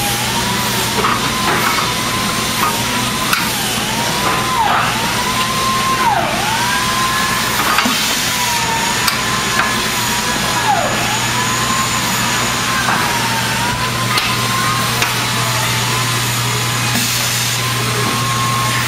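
Steady machinery hum and noise filling a workshop, with a thin wavering whine that dips in pitch and recovers every second or two. Light metallic clicks come now and then as aluminium platform parts are pinned together.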